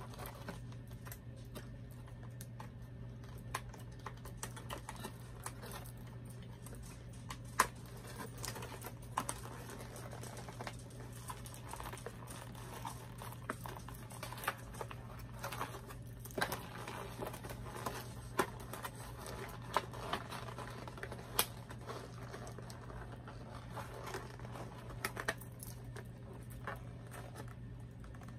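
Hands unpacking a doll's packaging: scattered light clicks and taps, with crinkling of plastic and cardboard, over a steady low hum.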